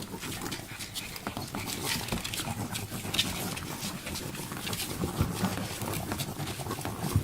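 Three-week-old Siberian Husky puppies making small animal noises, with scattered clicks and scuffles as they move about.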